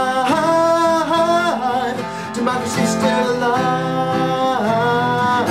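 A man singing long held notes over strummed acoustic guitars, each note sliding in pitch as it ends.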